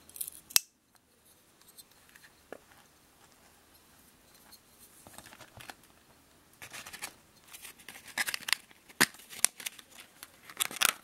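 Mercator K55K lockback pocket knife being handled: one sharp click about half a second in as the blade snaps open and locks, then faint scattered clicks and rustling, busier near the end as a plastic-sleeved paper leaflet is handled.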